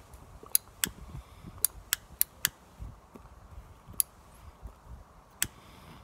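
A tobacco pipe being lit: soft low puffs as the smoker draws on the pipe while a lighter flame is held over the bowl, with about eight sharp, separate clicks spread unevenly through the puffing.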